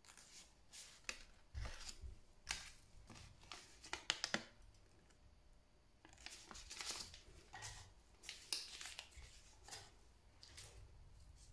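Paper instruction leaflet from a Kinder Surprise egg being handled and turned over in gloved hands, with irregular rustling and crinkling and a quick run of sharp ticks about four seconds in.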